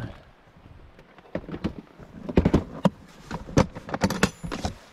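Fishing gear being handled and rummaged through: a run of sharp clicks and knocks starting about a second in, with a brief high ring near the end.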